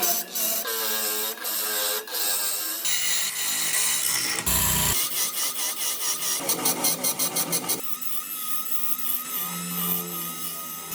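Small power tools working wood, heard as a string of short clips that change abruptly every second or two, with rapid repeated strokes and, in the last few seconds, a steady whine like a rotary tool.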